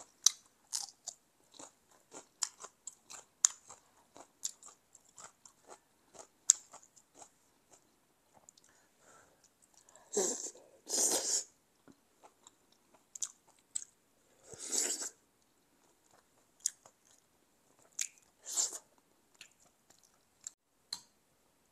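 Close-up mouth sounds of a person eating: crisp bites and chewing of a raw green chili pepper, then chewing of chicken, with many small wet clicks throughout and a few longer, louder mouth noises around the middle.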